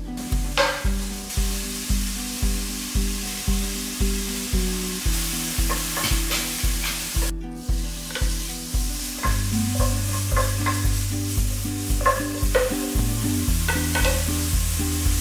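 Diced pork, then shrimp and squid, sizzling in hot oil in a nonstick frying pan, with a wooden spatula clicking and scraping against the pan as the food is stirred. Background music with a steady beat plays throughout.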